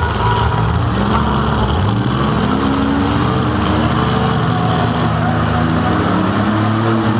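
Compact demolition derby car's engine heard from inside the cabin, revving up and down while the car pushes against another car.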